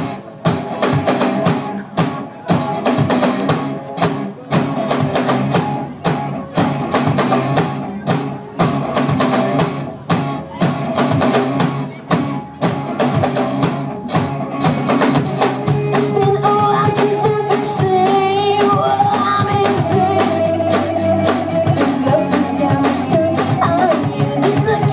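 Live rock band playing: drum kit keeping a steady beat under bass and guitar. About fifteen seconds in the music fills out, with a sustained melodic line held over the beat.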